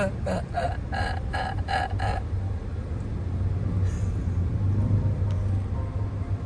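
Steady low rumble of a car's engine and road noise inside the cabin while driving. For the first two seconds a voice makes a quick run of short repeated sounds, about three a second, then stops.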